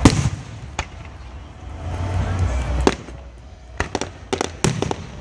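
Aerial fireworks going off: a loud bang right at the start, single bangs about a second and about three seconds in, then a quick run of sharp cracks near the end.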